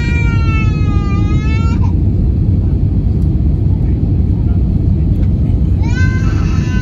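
Steady low rumble of the Airbus A320's cabin noise on final approach, with a baby crying over it: one long wail that falls in pitch at the start, and another starting near the end.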